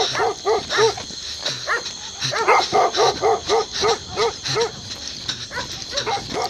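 Dogs barking in a rapid run, about three barks a second, growing fainter in the last second or so.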